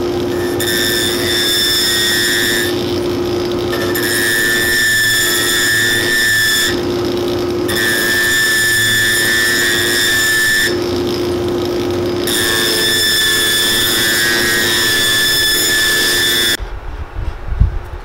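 A cobbler's electric finishing machine runs with a steady hum while the edge of a new leather sole is trimmed against its wheel. A high whine rises each time the edge is pressed in, four passes in all. The sound cuts off abruptly near the end.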